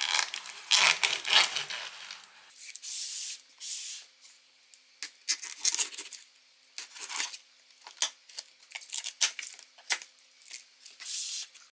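Knife blade slicing through the packing tape on a cardboard box, with the cardboard scraping and rubbing. It comes as a run of short, irregular cutting strokes, denser in the first couple of seconds.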